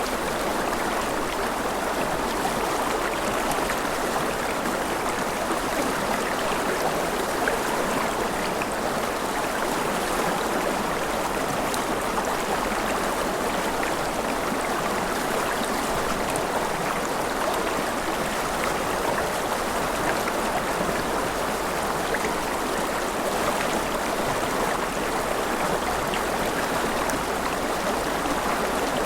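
Mountain river rushing over rapids, a steady, even sound of flowing water.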